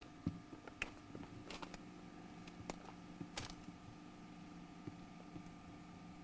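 Faint camcorder noise: a steady low hum from the camera's own mechanism, with a few scattered sharp clicks of the camera being handled, the loudest in the first second and near the middle.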